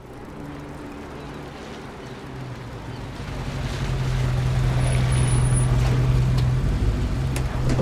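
A ship's horn sounding one long, low, steady note that swells in level, over a low rumble of vehicle engines.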